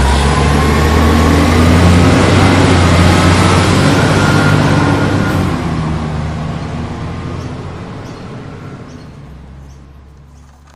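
Engine sound of a large truck, loud at first and then fading steadily through the second half as the vehicle draws away. It is a sound effect laid over the toy truck.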